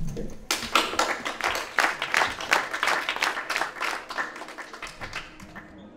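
Audience applauding at the end of a stand-up set. The clapping starts about half a second in and dies away over the last second or so.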